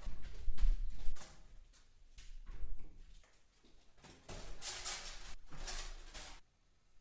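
Irregular bumps and scraping, with two heavy low thumps about a second in and a longer scraping stretch later.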